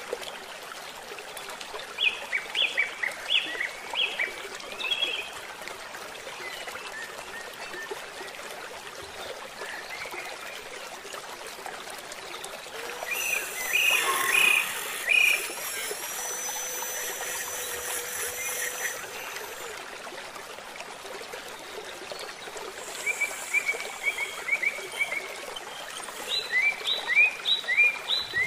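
Outdoor ambience: a steady hiss with several bursts of quick, high chirping animal calls, each burst a rapid run of short falling chirps. A high buzz joins in for a few seconds around the middle.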